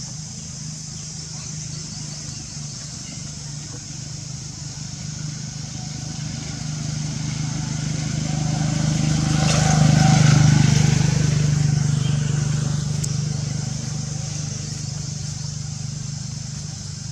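A motor vehicle passing by: a low engine hum that grows louder, is loudest about ten seconds in, then fades away, over a steady high-pitched hiss.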